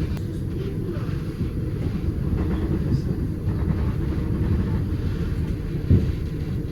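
Steady low rumble of a moving vehicle, with a brief louder thump about six seconds in.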